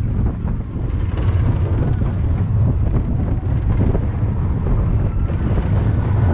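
Slinky Dog Dash roller coaster train running along its track: a loud, steady low rumble with wind rushing over the microphone.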